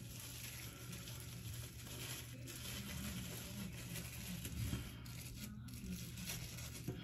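Faint crinkling and rustling of a thin clear plastic shower cap being pulled and tucked into place over hair.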